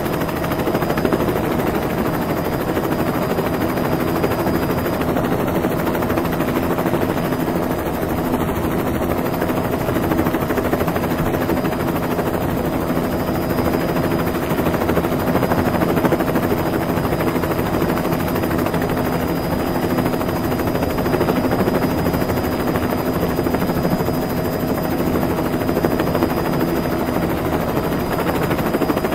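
Steady whirring of a rotor aircraft's spinning blades, an even, unchanging noise with a constant hum underneath.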